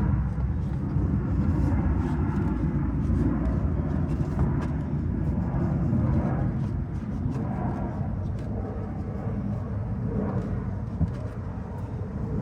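Steady low rumble of outdoor background noise, with a few faint light ticks.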